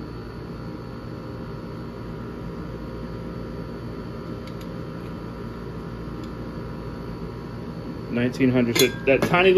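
Steady background hum with a couple of faint ticks, then about eight seconds in, light metallic clinks and handling noise as a digital caliper is worked against an aluminium engine support plate, with a voice mixed in.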